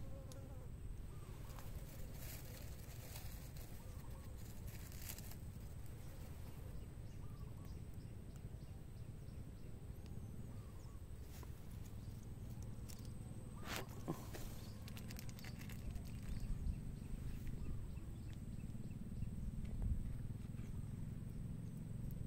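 Insects buzzing over a steady low rumble, with scattered small clicks and taps.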